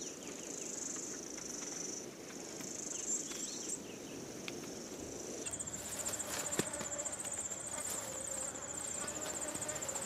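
A high-pitched insect chorus of crickets trilling steadily. About five and a half seconds in it changes to a fast pulsing trill, with a lower steady hum joining it.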